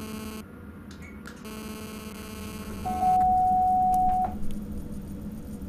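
Electronic warning signals in a Sprinter train's driver cab: two short rasping buzzes, then a loud steady single-pitched beep lasting just over a second, over the cab's steady low hum. A few light clicks follow the beep.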